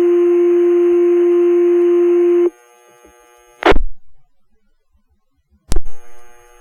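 Fire department dispatch pager tone over the radio: the long second tone of a two-tone sequential alert holds steady, then cuts off about two and a half seconds in. Two short, sharp radio pops follow, a second and then three seconds after the tone ends.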